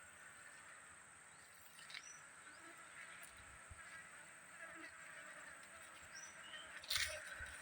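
Faint outdoor ambience: a steady high hiss of insects, a few short high chirps, and a sharp knock about seven seconds in.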